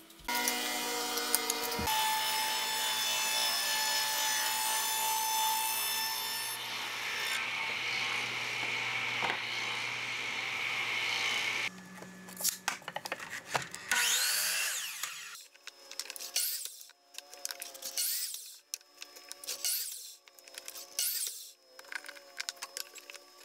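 Electric miter saw running and cutting cedar board for about eleven seconds, then stopping abruptly. After that, quieter irregular scraping and tapping as the wood is marked and moved on the saw table.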